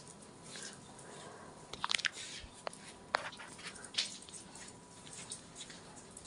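Puppies scampering and play-fighting on a laminate floor: scattered light ticks and taps of claws, with a cluster of sharper clicks about two seconds in and single ones near three and four seconds in.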